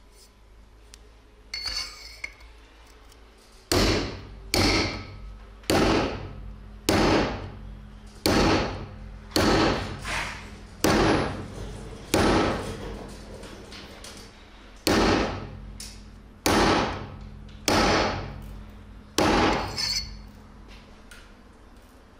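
Hammer blows on a metal pipe driving a tapered roller bearing down onto a motorcycle steering stem. About a dozen sharp strikes, roughly one a second, each ringing briefly, starting a few seconds in with a short pause near the middle.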